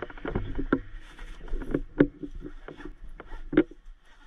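Medical gear being handled in a soft EMS bag: a string of small clicks, rustles and knocks, with two sharper knocks about two seconds in and near the end.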